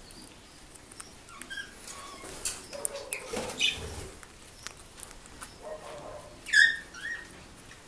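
Two Senegal parrots eating a strawberry: scattered soft clicks of beaks biting and chewing, with two short squeaks close together late on, the first the loudest sound.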